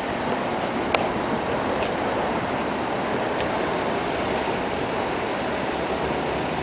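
Steady rushing outdoor noise in a parking lot, with a single sharp click about a second in.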